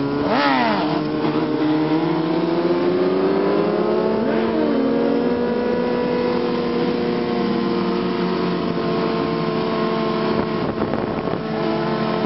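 Several sport motorcycle engines running and revving together. The pitch swoops up and down in the first second and again about four seconds in, then holds a steady drone.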